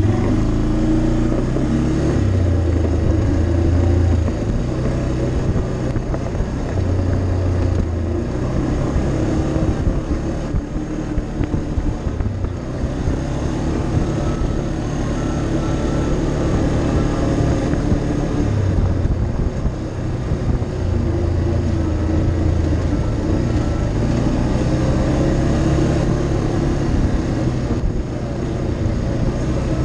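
ATV engine running as it rides a dirt trail, its pitch rising and falling every few seconds with the throttle, over a steady rush of wind and trail noise.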